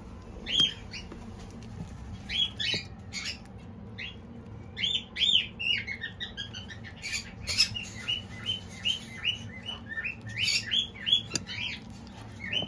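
Small birds chirping in runs of short, quick notes.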